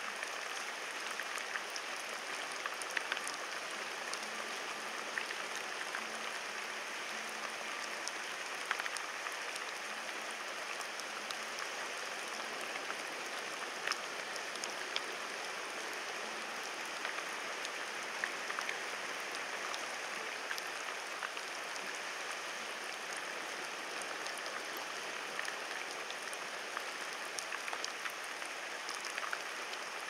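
Steady rain falling, with occasional sharp ticks of single drops landing close by.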